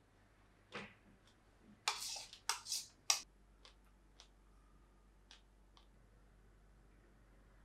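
Metal spoon clicking and scraping against a ceramic bowl, in small scattered taps, with a run of louder scrapes about two to three seconds in.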